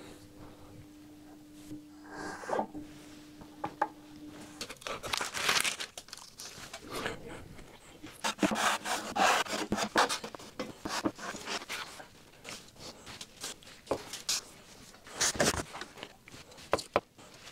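Workshop handling noise: irregular rubbing and scraping with several sharp clicks. A steady low hum stops about four and a half seconds in.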